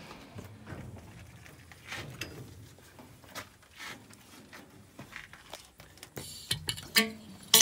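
Handling noises at a bulldozer's cab while an oil container is readied: scattered light knocks and clicks, then two sharp metallic clanks that ring briefly near the end.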